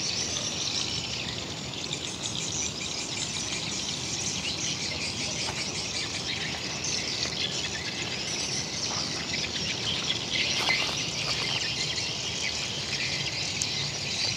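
Outdoor ambience of steady high-pitched chirping from birds and insects over a low background hum of environmental noise.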